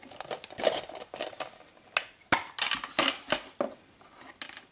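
Metal Blu-ray Steelbook case being opened and handled: an irregular run of sharp clicks and taps with scraping of metal and plastic, the loudest clicks in the middle.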